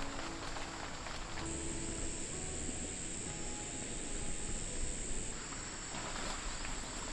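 Insects chirring in a steady, high-pitched drone over a soft background hiss, louder about a second and a half in and easing near the end.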